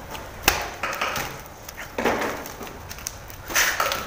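Wheat dough being kneaded and pressed by hand in a steel bowl: a sharp knock about half a second in, then a few short squelching, rustling pushes.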